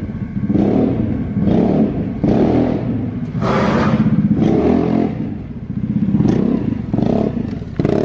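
Vespa GTS 300 scooter's single-cylinder four-stroke engine breathing through a replica Akrapovic slip-on muffler, ridden up and past close by. The throttle is opened and closed several times, so the exhaust note rises and falls in repeated bursts.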